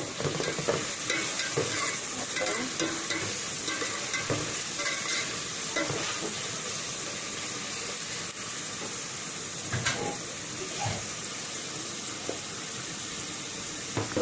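Food sizzling in hot oil in a pan, stirred with a spoon that now and then knocks and scrapes against the pan.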